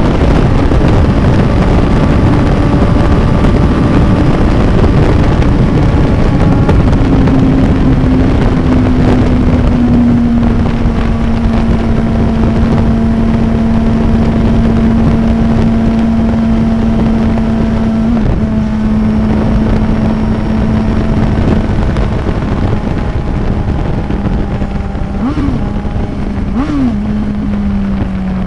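Suzuki inline-four motorcycle engine running at a steady highway cruise under heavy wind rush, its note slowly sinking. There is a brief pitch jump midway and two quick throttle blips near the end, then the pitch drops as it slows.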